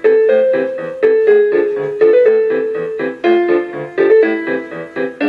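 Casio LK-250 lighted keyboard playing one of its built-in song bank tunes: a piano-voice melody over an evenly pulsing chord accompaniment.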